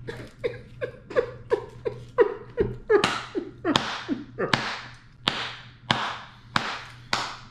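A man clapping his hands in a steady rhythm, about three claps a second. The claps get louder and sharper about three seconds in.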